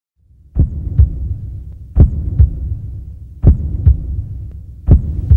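Heartbeat sound effect: four paired lub-dub thumps about every second and a half over a low drone, starting out of silence about half a second in.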